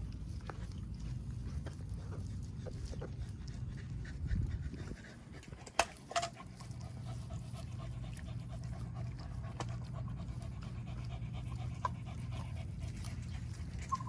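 A corgi panting steadily, with a few sharp clicks along the way.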